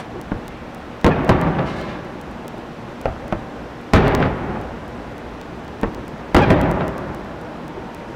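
Aerial fireworks shells bursting: three loud booms a few seconds apart, each trailing off in a long echo, with a few smaller pops and crackles between them.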